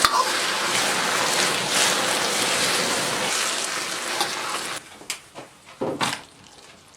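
Fried eggplant chunks and green pepper sizzling in a wok of sauce while being stirred. The sizzle stops abruptly just under five seconds in, followed by a few short knocks.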